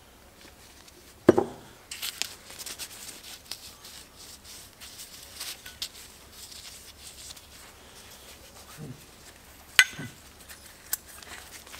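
A forged steel connecting rod and a piston being handled on a workbench: a dull knock about a second in, then light rubbing and small clicks, and a sharp metallic click near the end.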